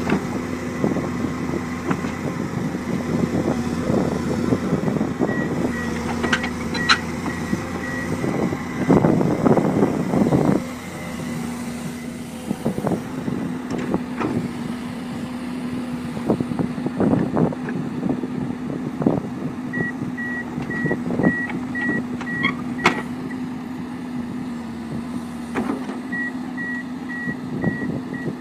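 Komatsu PC200 hydraulic excavator's diesel engine running under load as it climbs onto a low-bed truck, with clanks and knocks from its steel tracks on the ramps and deck. About nine seconds in the engine rises louder for a second and a half. An alarm beeps a few times a second in three spells, typical of an excavator's travel alarm while its tracks are moving.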